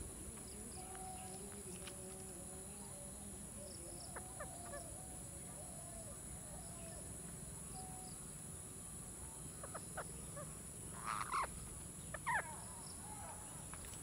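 Rose-ringed parakeets at a tree-hole nest: mostly quiet, with faint wavering calls in the background and a few light taps, then two short squawks near the end.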